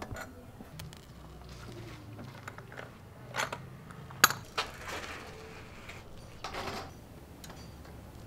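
Small metal clinks and scrapes of a tool and loose nuts as a training wheel is unbolted from a child's bicycle, with one sharp, louder clink about four seconds in.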